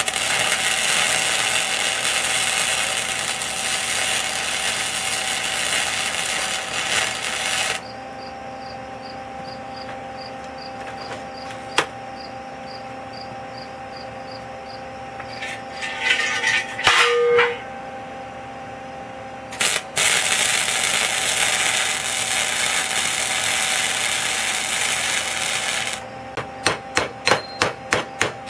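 Stick-welding arc crackling and hissing through two weld beads, one for the first eight seconds or so and another from about 20 s to 26 s, with a steady hum and a few metal clinks between them. Near the end, fast sharp taps of a chipping hammer knocking slag off the fresh weld.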